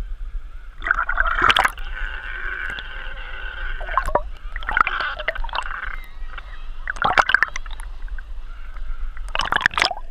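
Seawater sloshing and gurgling against a camera bobbing at the surface, with sharp splashes about a second and a half in, around seven seconds and near the end as it dips under.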